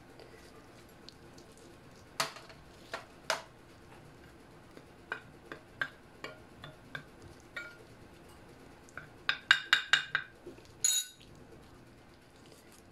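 A metal utensil clinking against a ceramic plate while stirring seasoning into flour: scattered single clinks, then a quick run of about six clinks about nine seconds in, and a last, longer clatter about eleven seconds in.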